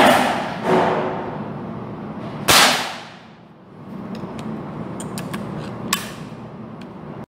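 Air rifle firing: a sharp report right at the start and another about two and a half seconds in, each dying away quickly, followed by a few small clicks of handling.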